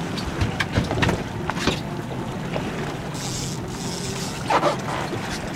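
Small boat's motor running steadily at low speed, with wind on the microphone and a few short knocks and splashes in the first two seconds.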